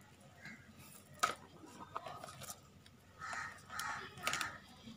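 Stiff plastic basket-weaving wire being handled and pulled through the weave: a sharp click a little over a second in and a lighter one at about two seconds, then three short rustling scrapes in the second half.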